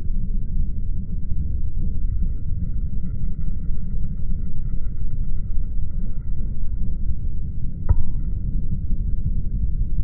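Steady low outdoor rumble with no bird calls, and a single short click about eight seconds in.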